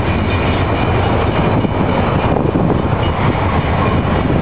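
BNSF double-stack container freight train rolling past at close range, a loud steady rumble of its cars on the rails.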